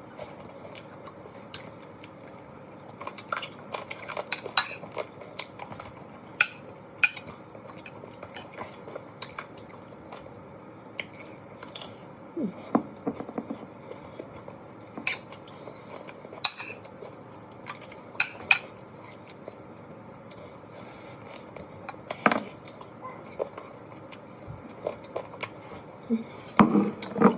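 Cutlery clinking and scraping against a plate during a meal, in sharp scattered clicks at uneven intervals, with chewing in between.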